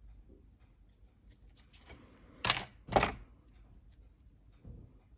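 Two snips of small scissors cutting through lace trim, about half a second apart, near the middle.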